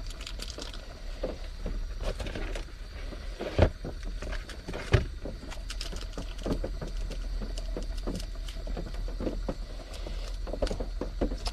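Rain pattering irregularly on the small camper's shell, with two sharper knocks about three and a half and five seconds in.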